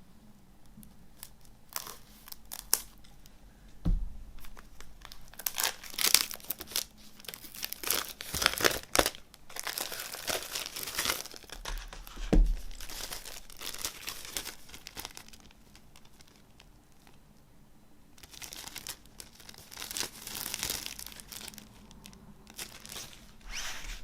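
Crinkling and tearing of a CD's plastic shrink-wrap as it is peeled off by hand, in crackly bursts that die down about two-thirds of the way through and resume briefly. Two soft knocks of the case being handled come in between.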